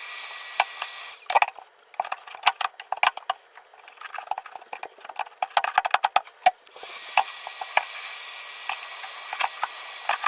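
Steady blowing hiss with a high whine, typical of a heat gun, that drops out for several seconds in the middle. In its place comes a quick, irregular run of scraping and clicking as a scraper works at the floor pan of a 1986 Camaro IROC-Z.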